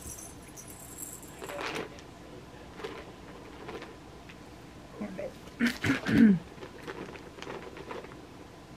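Cat toys being handled and shifted on a carpet: small rustles and light clinks of plastic balls and toys. Past the middle comes a short voice-like sound with a wavering pitch.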